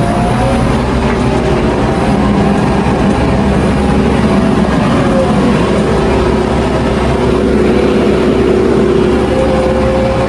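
Heavy construction machinery's diesel engines running steadily, with a slight shift in engine pitch now and then.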